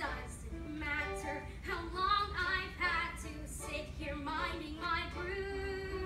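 A girl singing a musical-theatre solo in sustained, melodic phrases, over a low steady hum.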